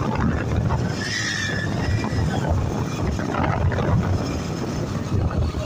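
Motorcycle riding along, its engine a steady low rumble mixed with wind buffeting the phone microphone. A short high-pitched tone sounds about a second in.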